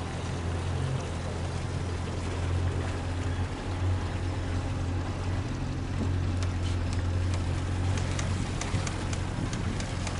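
Boat engine running at a steady low hum, with a few light clicks and taps in the last few seconds.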